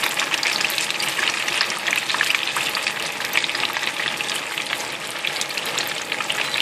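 Spring rolls deep-frying in hot vegetable oil: a steady sizzle with dense fine crackling, the rolls nearly done.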